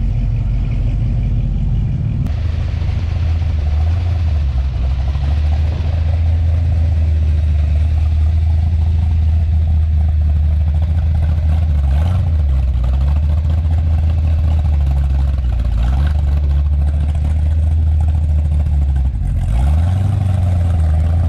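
Car engine running at a low, steady rumble close by, with short pitch swings about 12, 16 and 20 seconds in, like brief blips of the throttle.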